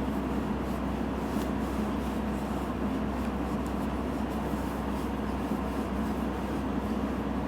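Steady low background hum and hiss, with a few faint ticks.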